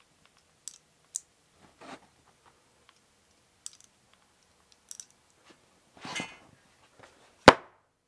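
Faint scattered clicks, taps and rustles of a hot glue gun and stiff white board panels being handled as the panels are glued into a box, with one sharp knock near the end.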